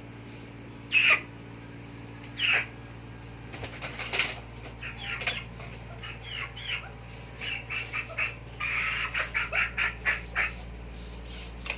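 Chicken calling: two separate calls about a second apart near the start, then a rapid string of short, high clucks from about four seconds in until near the end.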